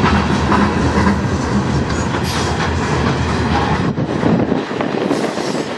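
Freight train cars rolling past on the rails: a steady rumble of steel wheels on track with occasional clicks over the rail joints. The deep part of the rumble fades about four and a half seconds in.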